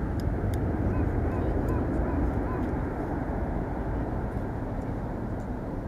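Boeing 767-300 airliner's twin General Electric CF6-80C2 turbofans at takeoff climb thrust: a steady, low rumble of jet noise that eases slightly as the aircraft climbs away.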